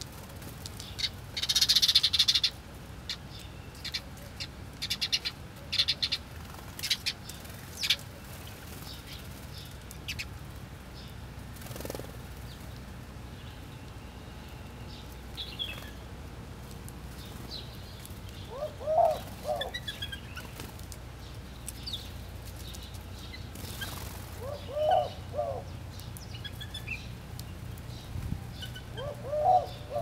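House sparrows chirping and fluttering as they feed, with a loud burst of chirps about two seconds in and quick wing flutters over the next several seconds. Three times in the second half a lower, throaty call from another animal sounds in the background.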